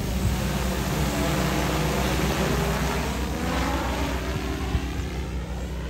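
DJI Agras T10 crop-spraying drone flying overhead, its four rotors giving a steady droning hum with a rush of air. The tone sweeps as it passes, and the sound fades a little near the end as it moves off.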